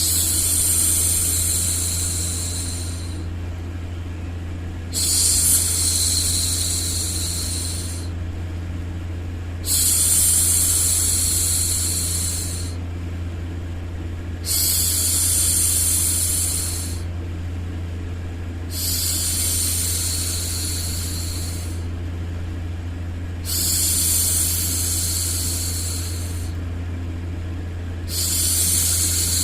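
A woman's hushing 'shhh', repeated about every five seconds, each shush lasting two to three seconds and fading, over a steady low white-noise hum.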